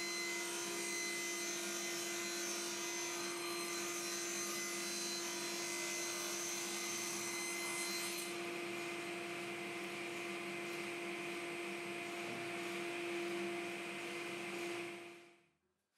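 Axminster cast-iron table saw with an induction motor running steadily with a constant hum while a plywood panel is pushed through the blade and ripped. The sound fades out shortly before the end.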